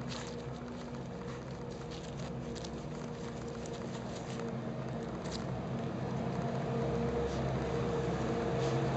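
Chorkie puppy digging in loose garden soil close to the microphone: scattered scratching and crackling of dirt under its paws and nose. A steady low hum runs underneath and grows slightly louder toward the end.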